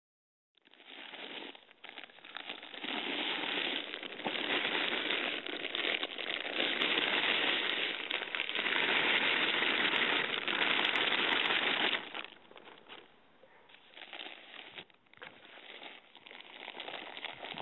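Plastic bag of potting soil crinkling and rustling as it is tipped into a large planter, with the soil pouring out. It starts about half a second in and eases off for a few seconds after about twelve seconds before picking up again.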